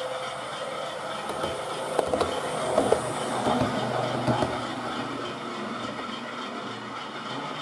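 A model railway train running on the layout track: a steady motor hum, with a run of irregular wheel clicks on the rails about two to four and a half seconds in.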